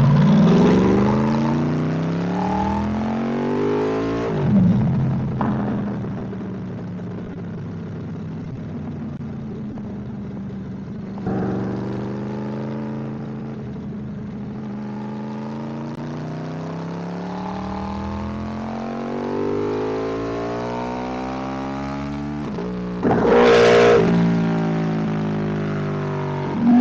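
Yamaha R1's crossplane inline-four engine during a ride: it revs up at the start, drops off after about four seconds, runs steadily, then climbs again, with a short, very loud rev near the end.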